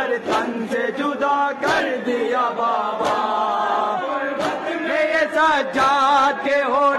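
A noha, a Shia mourning lament, sung with a wavering melody and chanted by a crowd of men, with sharp slaps of hands beating on chests (matam) at irregular intervals.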